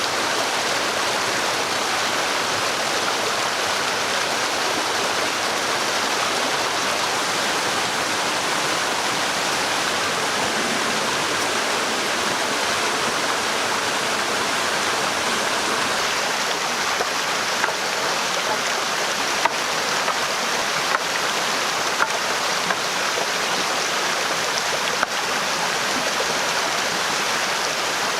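Steady rushing of running water, even and unbroken, with a handful of sharp light taps over the second half.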